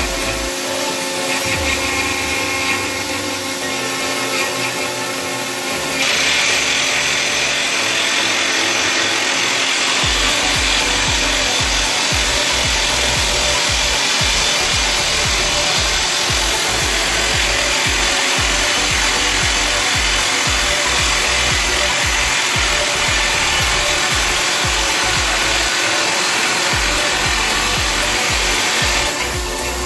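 Resemin Raptor 55 2R long-hole drilling rig's hydraulic rock drill drilling 64 mm holes: a steady, loud mechanical noise. It gets louder and harsher about six seconds in and dips briefly near the end.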